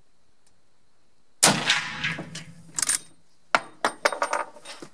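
A single rifle shot from a Pedersoli Boarbuster Evolution .45-70 lever-action about a second and a half in, the report dying away over about a second. It is followed by a run of sharp metallic clicks and clinks from the action being worked and the spent brass case falling.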